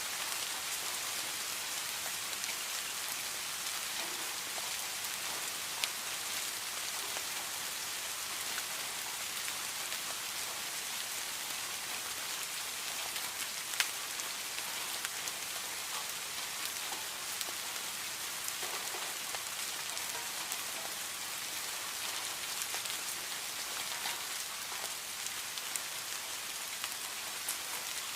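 Heavy rain falling steadily, a dense hiss with scattered sharp drip ticks and one louder tick about halfway through.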